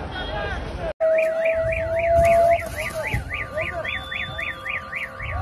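Crowd voices, then after a cut a vehicle's electronic siren warbling quickly up and down, about three cycles a second, with a steady tone sounding alongside it at first.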